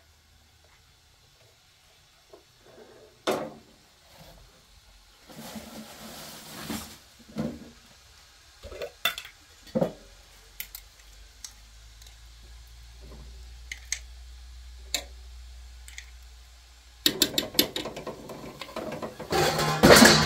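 Steel cooking pot and lid handled on a gas stove: scattered clanks and knocks. Near the end comes a dense run of clatter and splashing as vegetable pieces are dropped into the water in the pot.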